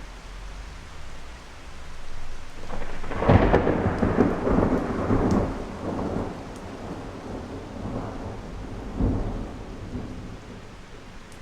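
Thunder rolling over steady rain. The rumble builds about two and a half seconds in and peaks a moment later with a sharp crack. It then rolls on in several swells and fades near the end.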